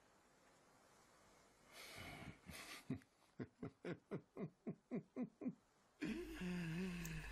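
A man chuckling softly: a breathy start, then a run of about ten short falling 'ha' sounds, roughly four a second. Near the end comes a short low hum from the voice.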